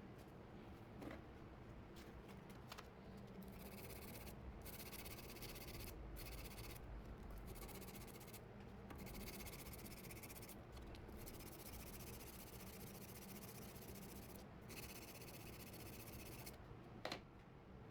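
Faint hand sanding of a steel knife blade with fine-grit sandpaper (400 then 600 grit): a scratchy rubbing that comes and goes in stretches, with a single click near the end.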